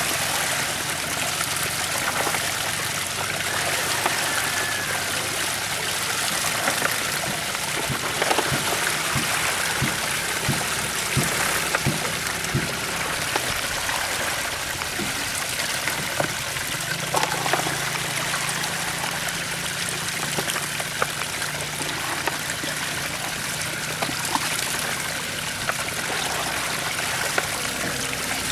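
Water pouring steadily into a woven bamboo basket full of small tengra catfish, with scattered splashes and light knocks as a plastic colander scoops fish out of the water.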